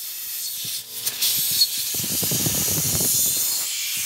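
Compressed air hissing steadily from a blow nozzle into the aluminum quench blocks around hot stainless Damascus blades: the air quench that hardens the air-hardening stainless steel after heat treatment. A lower rumble joins the hiss about halfway through.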